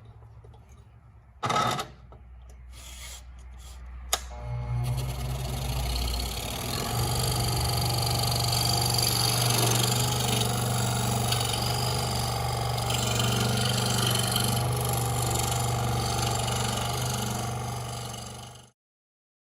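Scroll saw switched on with a click and running steadily as it cuts a wooden sign, then cut off abruptly.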